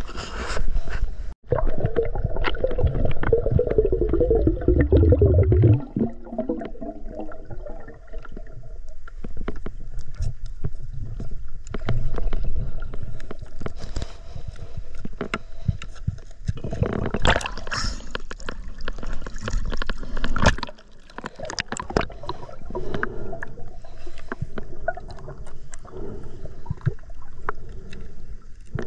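Underwater sound picked up by a camera held below the surface over seagrass: muffled water movement and gurgling, peppered with many small clicks and crackles. For several seconds near the start, a low rumble with a falling hum runs beneath it and then cuts off.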